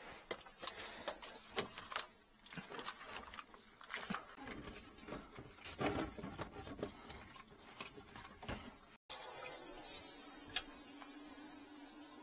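Irregular clicks, rattles and rustles of gloved hands handling a corrugated plastic sink drain hose and feeding a pipe inspection camera cable into it. About nine seconds in this cuts off abruptly to a steady hiss with a faint low hum.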